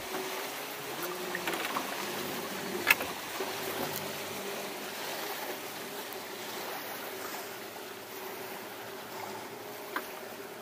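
Water sloshing and lapping against a small fishing boat's hull as passing boats' wakes rock it, over the steady hum of a boat motor. A sharp knock about three seconds in and a fainter one near the end.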